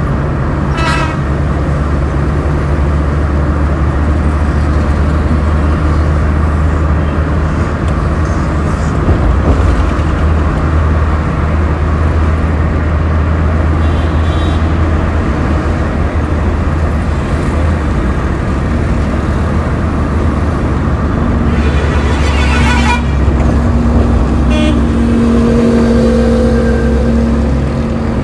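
Road traffic: a steady low rumble of passing vehicles, with horns tooting now and then and a held pitched tone in the second half.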